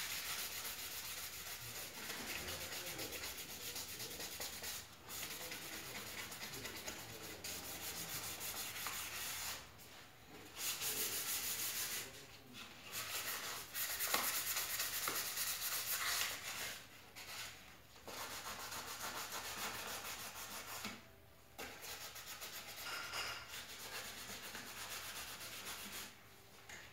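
Plastic car trim being sanded by hand with sandpaper ahead of primer: a continuous rasping rub broken by several short pauses.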